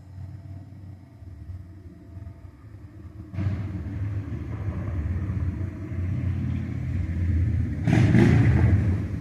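A motor vehicle running close by, a low engine and road rumble that jumps up about three seconds in and is loudest near the end before it fades. No siren tone is heard.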